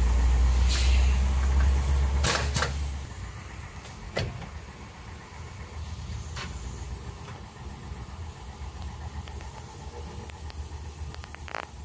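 Isuzu 4HF1 four-cylinder diesel engine idling, then shutting off about three seconds in. After that there is a faint low background with a few scattered sharp clicks.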